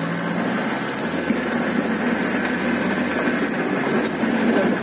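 Safari vehicle's engine running steadily at low revs while the vehicle moves slowly along a dirt forest track.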